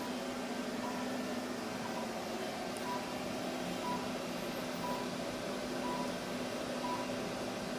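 Short electronic beep repeating evenly about once a second over a steady hum of room and air-handling noise.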